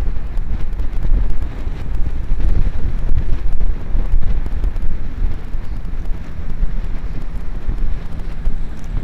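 Wind buffeting the microphone of a camera on a moving road bicycle: a loud, uneven rumble that rises and falls.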